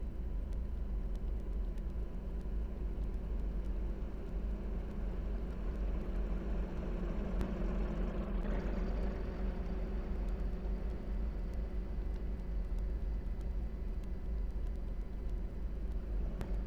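Steady, even rumbling noise, heaviest in the deep bass with a hiss above it, swelling for a moment about eight seconds in.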